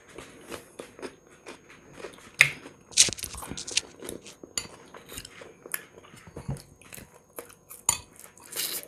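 Close-up eating sounds: a metal fork clinking and scraping in a salad bowl and on a plate, mixed with biting and chewing of fried chicken and salad. It comes as a dense run of short clicks and mouth smacks, with a few sharper clinks.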